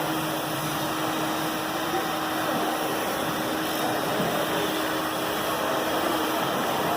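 Ruwac R211H HEPA industrial vacuum running steadily under load, drawing dust from drywall sanders: an even rushing noise with a steady hum beneath it.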